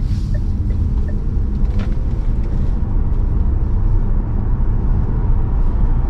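Steady road and wind noise inside the cabin of a Deepal SL03 driving at around 90 km/h, with a faint whine rising slowly in pitch during the first half.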